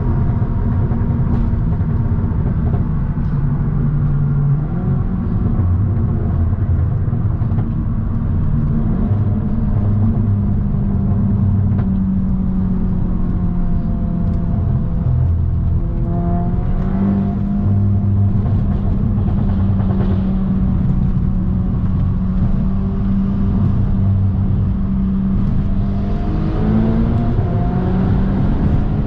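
2017 Audi S3's turbocharged 2.0-litre four-cylinder engine and exhaust running under way, a steady drone that rises in pitch a couple of times as the car accelerates.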